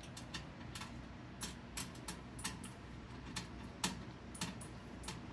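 A standoff tool's socket end clicking against metal motherboard standoffs in a computer case as they are tightened: about a dozen light, irregular ticks, the sharpest about four seconds in.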